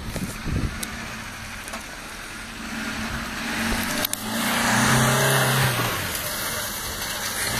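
Small 4x4's engine pulling under load up a steep dirt slope, with tyres crunching over soil and stones. The engine gets louder about four seconds in.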